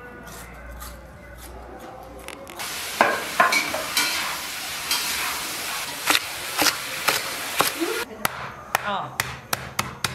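Cleaver chopping napa cabbage and crab sticks on a wooden cutting board: irregular sharp chops, under a steady hiss for several seconds in the middle, then clearer separate chops near the end.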